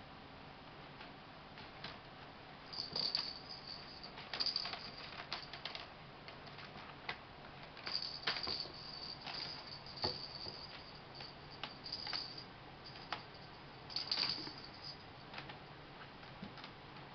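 Kittens playing with toys on a wooden floor: a cat-toy ball rattles in short bursts as it is batted and rolled, with scattered clicks and taps of toys and paws on the boards. The rattling comes in bouts about three, four and a half, eight to twelve, and fourteen seconds in.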